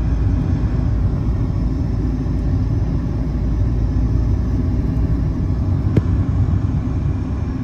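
Steady low rumble of a moving vehicle, with one sharp click about six seconds in.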